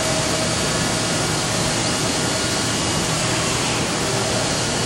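Okuma MCR-B II double-column machining center running through an automatic head change: a steady machine hiss and hum, with a faint whine over the first second and a half as the ram moves.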